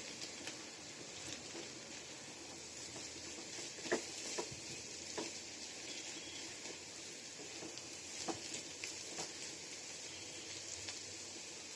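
Cauliflower, carrot and potato bhaji with egg sizzling as it fries in a pan, with scattered clicks of a spatula stirring against the pan, the loudest about four seconds in.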